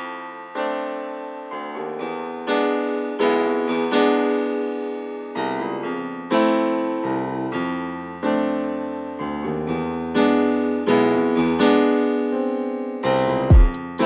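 Intro music played on a piano-like keyboard: a slow run of struck notes and chords, each one fading away. A deep bass hit comes near the end.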